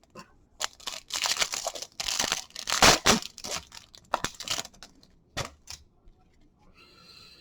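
Baseball card pack wrapper being torn open and crinkled: about three seconds of tearing and crinkling, followed by a few short light clicks.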